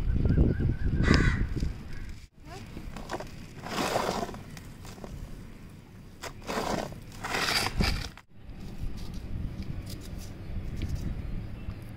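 A crow cawing, with rustling and scraping handling noise in between.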